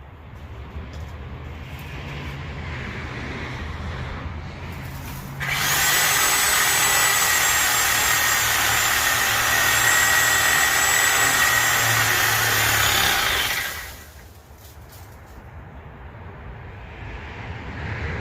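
A power saw cutting through a bottlebrush trunk. A lower steady running sound comes first, then a loud, even high-pitched cut about five seconds in that lasts about eight seconds and stops suddenly.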